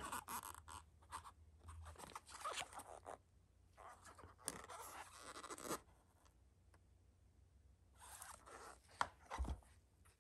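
Cardboard perfume box handled in nitrile-gloved hands: scrapes and rustles in several short bursts as it is turned over. A couple of sharp clicks follow near the end, then a soft low thump as the box is set down into a fabric-lined bag.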